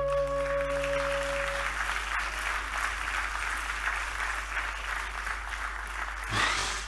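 Audience applauding steadily, while the last held notes of the music die away within the first two seconds.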